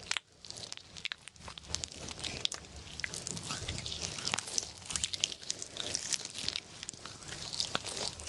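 Slime being worked and squished, giving a steady run of small crackles and clicks.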